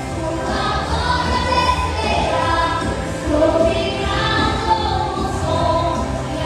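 A choir of voices singing a gospel song with instrumental accompaniment, held notes swelling and falling.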